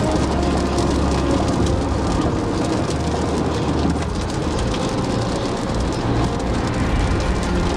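Heavy rain hitting a car's windscreen and roof, many small drop hits heard from inside the moving car over a steady low rumble of tyres and engine on the wet road.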